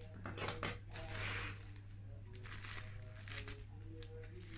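Scissors snipping into a plastic courier mailer bag, the thin plastic crinkling and rustling as it is handled and cut.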